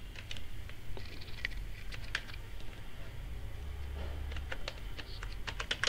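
Computer keyboard keys clicking as text is typed: a few scattered keystrokes, then a quicker run near the end, over a faint low hum.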